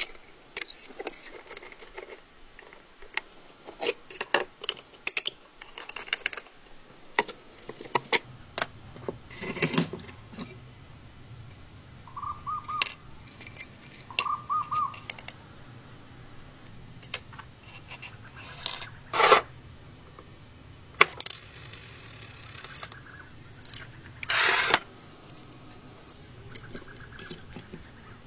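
Hand disassembly of an antique cast-iron mechanical coin bank: irregular metal clicks, taps and scrapes from a screwdriver and loose small parts. Two short squeaks come near the middle.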